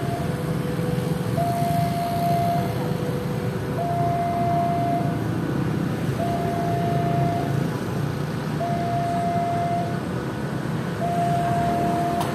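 Railway level-crossing warning alarm sounding its alternating two-note signal, a higher and a lower tone each held about a second and a quarter in turn; it signals an approaching train with the barriers down. A steady low rumble runs underneath.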